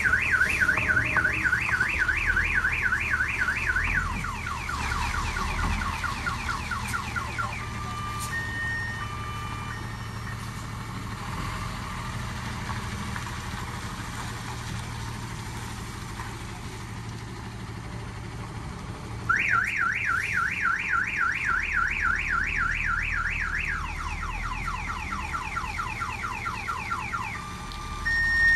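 Vehicle's electronic warbling alarm, a siren-like tone sweeping up over and over at about four a second, first at a higher pitch and then a lower one. It sounds for about seven seconds, stops, and starts again about nineteen seconds in for another eight seconds, with short steady beeps between, over a steady low engine hum.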